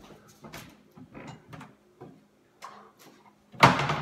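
Kitchen handling noises: a string of light clicks and knocks, then one much louder knock near the end.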